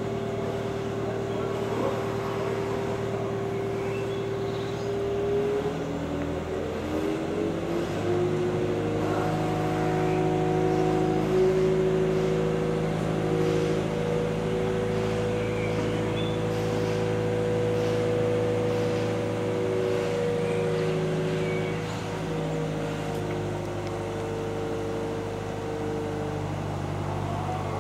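Mobile crane's diesel engine running while it lifts a rail wheelset. Its note steps up to higher revs about six to eight seconds in and then holds steady.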